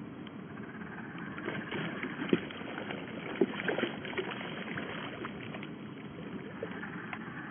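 Water splashing and sloshing as a hooked cherry salmon thrashes at the stream surface, with sharper splashes about two and a half and three and a half seconds in. The sound is dull and muffled, with no treble.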